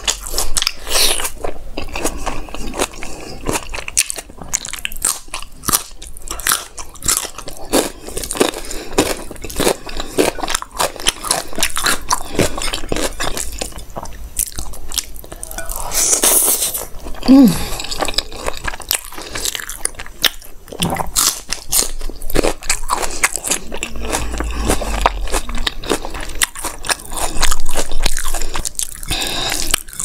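Close-miked chewing and biting of rice, curry and raw tomato eaten by hand: irregular wet mouth smacks and crunches.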